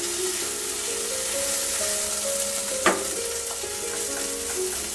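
Chicken keema and potato filling sizzling in a nonstick frying pan while a wooden spatula stirs and scrapes it, with one sharp knock of the spatula about three seconds in. The filling is cooked down and nearly dry, its water absorbed.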